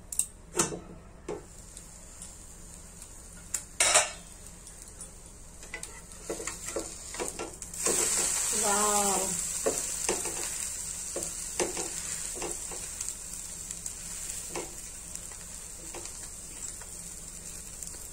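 A steel pan lid clinking a few times, loudest about four seconds in, as it comes off the frying pan; then about eight seconds in the buttered egg sandwich starts sizzling loudly in the pan, slowly fading, with a spatula scraping and tapping against the pan as it presses and turns the sandwich.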